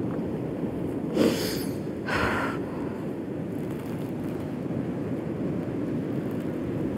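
Two short, sharp sobbing breaths from someone crying, about a second and two seconds in, over a steady low rumble of wind on the microphone.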